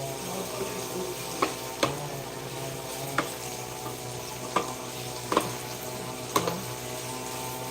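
Bitter gourd and egg frying in a pan with a steady sizzle, stirred with a utensil that knocks sharply against the pan about six times.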